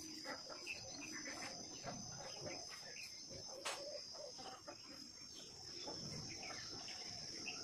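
Insects chirring steadily: a continuous high-pitched drone, with faint scattered small sounds beneath it and a brief click about halfway through.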